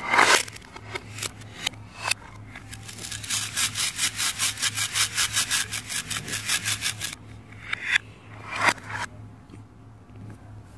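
Plastic toy food pieces from a velcro cutting set being worked by hand: a loud velcro rip as the knife parts a plastic vegetable, then a long run of rapid, even rasping strokes, about seven a second, as the plastic pieces are rubbed, and two more short rips near the end.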